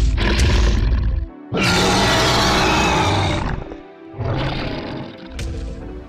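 Intro music with a dinosaur roar sound effect.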